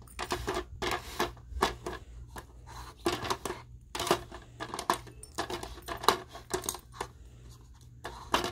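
Hard pieces of a treat puzzle box clicking and clattering irregularly as the pet works at them with teeth and paws, trying to turn a piece that won't turn that way.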